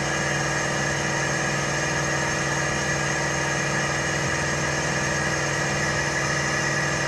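Air compressors running steadily: a constant machine hum made of several steady tones.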